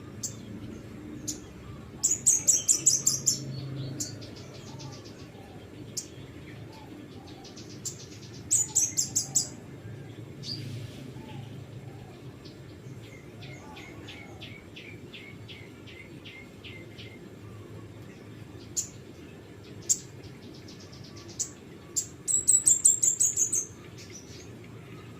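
A songbird singing: scattered sharp high chirps and three loud fast runs of high notes, about two seconds in, near nine seconds and near the end, with a quicker series of thin ticking notes in the middle.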